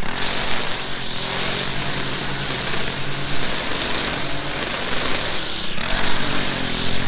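Stihl FS 190 R two-stroke string trimmer running at speed while trimming weeds. Its high whine drops away briefly twice, about a second in and a little before the end.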